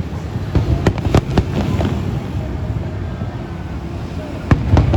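Fireworks display: a run of sharp bangs and crackles over a continuous low rumble in the first couple of seconds, then one loud bang near the end.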